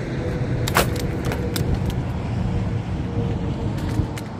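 Steady low rumble of wind on the microphone, with a few sharp clicks and crunches, the loudest about a second in, as a wire crab net is handled and thrown and feet shift on gravel.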